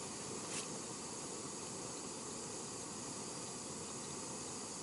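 Steady faint hiss of background noise, with one soft click about half a second in.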